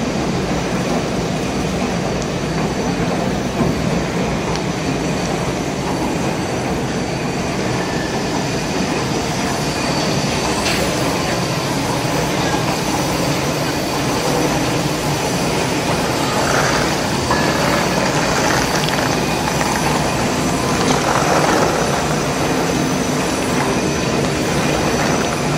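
Industrial hot-air popcorn popping machine running: a loud, steady mechanical rumble and rush of air that goes on without a break.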